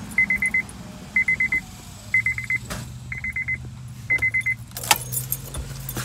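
Car's warning chime beeping in five quick bursts of rapid high-pitched beeps, about one burst a second, starting just as the engine stops running. This is typical of the key left in the ignition with the driver's door open.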